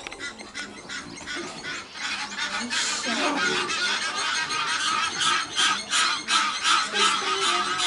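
Egyptian geese honking in quick, repeated calls as they attack, the honking growing louder and more continuous about two seconds in.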